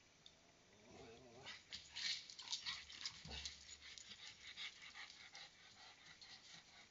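A dog moving about close by: a short falling whine a little after a second in, then faint rustling, clicking steps that are busiest in the middle and thin out toward the end.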